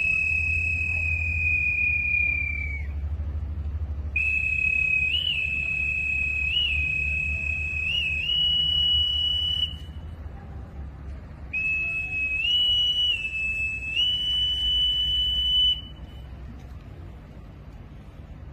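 A whistle blown in three long blasts, each a steady high note with a few quick upward flicks in pitch; the last ends about 16 seconds in. A low steady rumble runs underneath.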